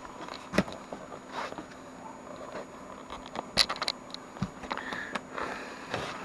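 Light handling noises, scattered clicks, taps and scrapes, the sharpest a bit past halfway, over a faint steady hum.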